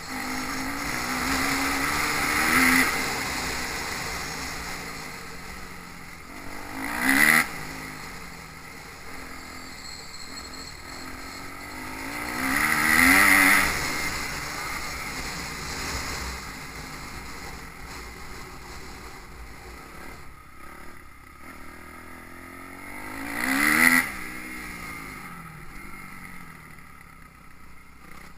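Motocross bikes running on a dirt track. Four bikes pass close by, each with a loud rise and fall of engine note, and more distant engines carry on between them.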